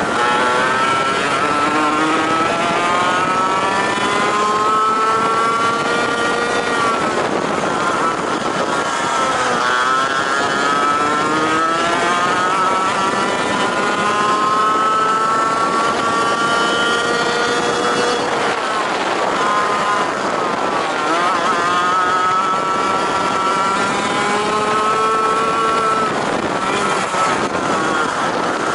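Racing kart engine heard from on board at race pace, revving up in long rising sweeps and dropping back sharply three times before climbing again, as the kart accelerates along the straights and slows for the corners. Wind and running noise throughout.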